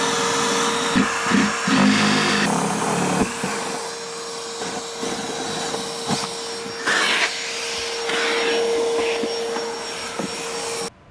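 Shop vacuum running steadily with a constant whine as it sucks up shavings, while a power drill bores through the boat's dash console in short bursts about one to three seconds in. The vacuum cuts off suddenly near the end.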